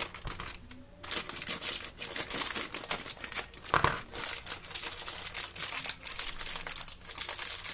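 Thin clear plastic bag crinkling and crackling in quick, irregular bursts as fingers squeeze and pull at it to open it, with a short lull about a second in.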